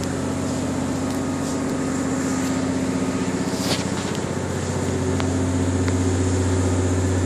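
Ship's engine-room machinery running: a steady, deep mechanical hum from the engines and generators. It grows a little louder about halfway through, with a couple of faint clicks.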